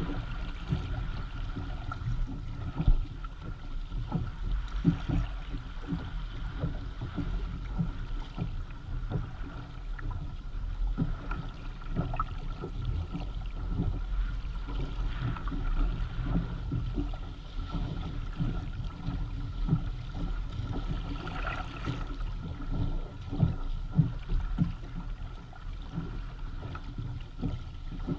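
Water splashing and slapping against the hull of a Hobie Tandem Island sailing kayak moving under sail, with frequent small irregular knocks over a steady low wash.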